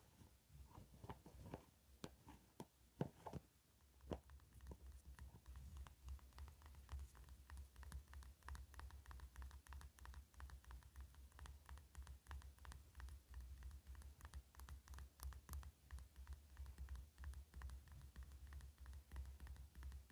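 Quiet fingertip and fingernail tapping on the plastic lid of a slime container: a few separate taps at first, then from about four seconds in a fast, continuous run of light taps.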